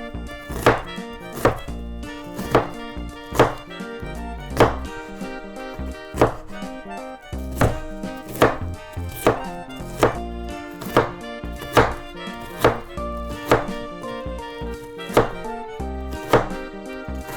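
Kitchen knife chopping on a cutting board in slow, unhurried single strokes, about one a second.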